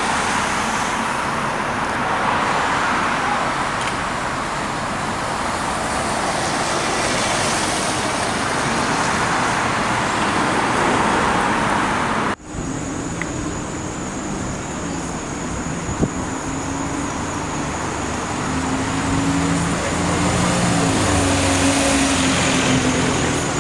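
Vehicle noise: a steady broad rush of traffic that breaks off at a cut about twelve seconds in. After the cut comes a high steady whine and a vehicle engine's hum, whose pitch rises and falls over the last few seconds.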